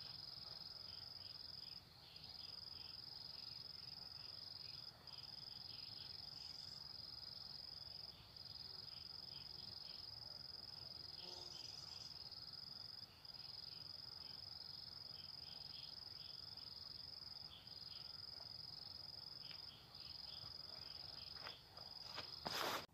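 A steady, high-pitched insect trill, broken by brief pauses every few seconds. A sharp knock comes near the end.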